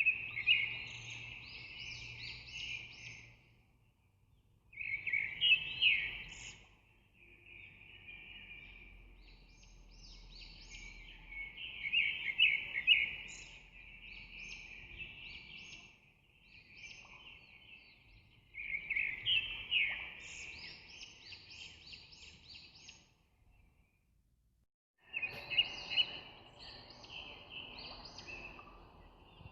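Birds chirping and singing in dense, busy phrases several seconds long, separated by short pauses.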